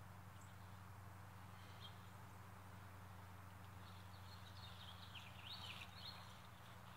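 Faint songbird calls: a single chirp about two seconds in, then a quick run of chirps a little past halfway, over a steady low hum.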